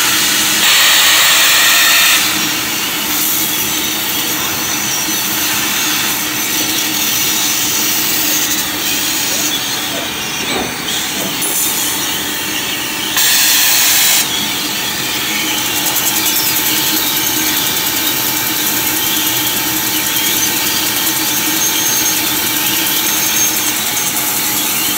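Trumpf 6050 CNC laser cutting machine cutting steel plate: a steady hiss of the cut with a faint hum from the machine. Two louder bursts of high hiss, each lasting a second or so, about a second in and again about thirteen seconds in.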